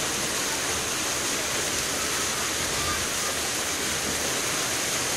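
Water pouring over a concrete step of a fish ladder and splashing into the pool below: a steady, unbroken rush.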